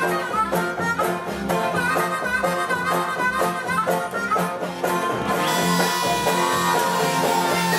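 Instrumental background music with a steady beat, which grows fuller about five and a half seconds in.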